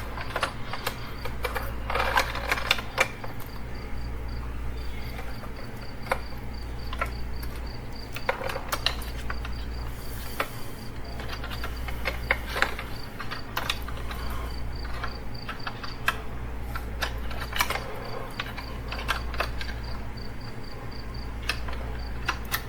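Plastic wiring-harness connectors and cables being handled and pushed into the back of a car radio head unit: scattered sharp clicks and rattles. Under them run a steady low hum and a faint, fast high-pitched chirping that comes and goes.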